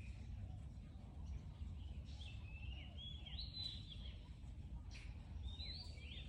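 High, sliding chirping calls from an animal in two bouts, one a couple of seconds in and another near the end, over a steady low rumble.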